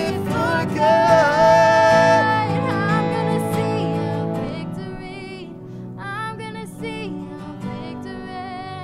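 A woman singing a slow worship song to acoustic guitar and Yamaha MX88 keyboard. She holds long notes with vibrato about a second in, then the music grows quieter before another sung phrase near the end.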